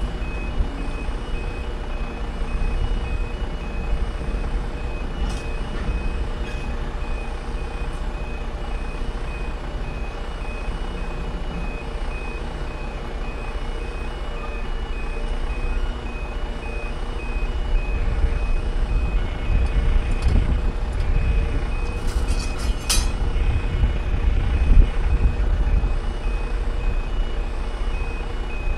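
UK level crossing warning alarm sounding continuously: two high tones alternating in a repeated yodel while the barriers are down. A low rumble runs underneath, and a few brief clicks come a little after halfway.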